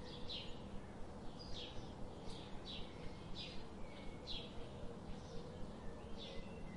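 A bird calling over and over in short, falling chirps, about one every half second, with a pause of about two seconds near the end, over a steady low rumble and hiss.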